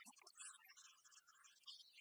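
Faint background music, barely above silence.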